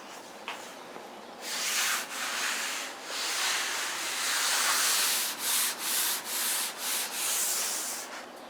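Sandpaper rubbed by hand over cured body filler on a car's steel body, to sharpen a body line. It starts with a few long strokes, then moves into quicker back-and-forth strokes at about two a second.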